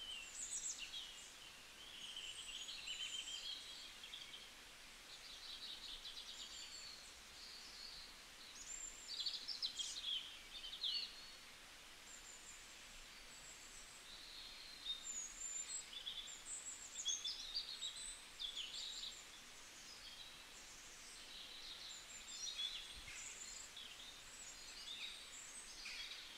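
Small songbirds chirping and trilling in quick, high-pitched notes that come and go over a faint background hiss.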